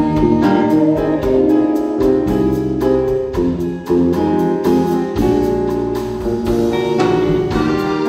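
Band and string ensemble playing an instrumental passage of a slow jazz ballad, with sustained chords and notes over a steady drum kit beat.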